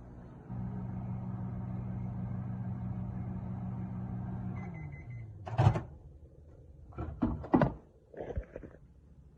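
Microwave oven running with a steady hum that stops a little past four and a half seconds in as a short high beep sounds. Several sharp clicks and knocks follow.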